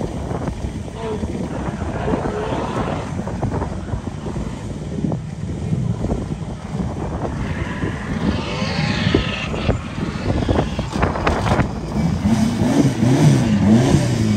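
Hillclimb race car engine being driven hard up a mountain road, revving up and dropping back with each gear change, getting louder near the end.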